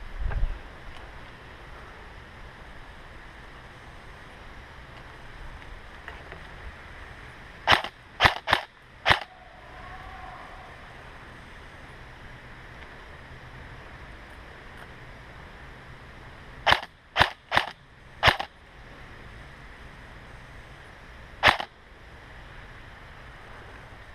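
Airsoft guns firing single sharp shots: a quick string of four, another string of four some nine seconds later, then one lone shot.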